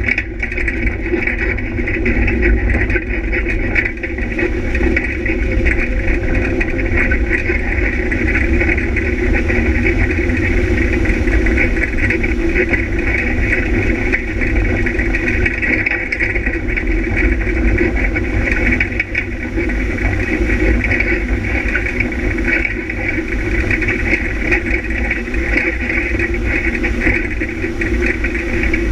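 Off-road vehicle's engine running at a fairly steady pitch while driving along a rough dirt track, heard loud and close from an onboard camera, with a constant deep rumble.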